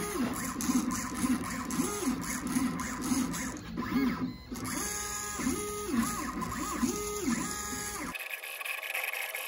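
Stepper motors of a Shapeoko 3 CNC whining as the gantry moves the pen-holding carriage, the pitch sweeping up and down again with each move as the axes speed up and slow down. The whine cuts off sharply about eight seconds in.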